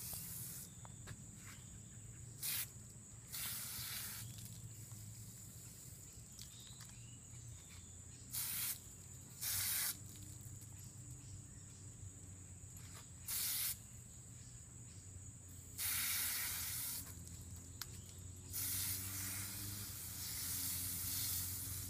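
Garden hose pistol-grip spray nozzle squeezed on and off, spraying water onto a dog's wet coat in about seven short bursts of hiss, each lasting up to about a second.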